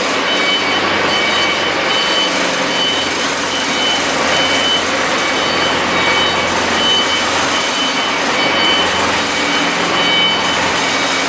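Cummins QSNT-G3 turbocharged six-cylinder diesel engine of a 300 kW generator set running steadily and loudly, with a high thin whistle that comes and goes.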